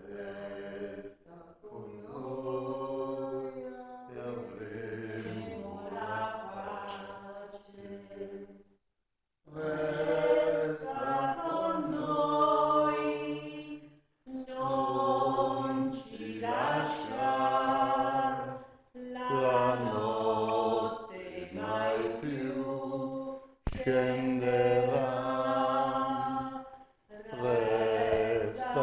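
Voices singing a slow Italian hymn in phrases a few seconds long, with short breaks between them.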